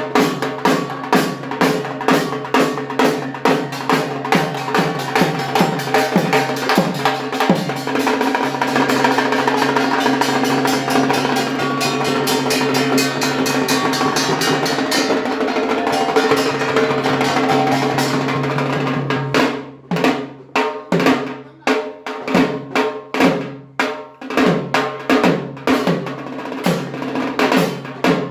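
Dhak, a large two-headed barrel drum beaten with sticks, played in a fast rhythm. About a third of the way in, the strokes run together into a continuous roll. For the last third they break back into separate, spaced beats.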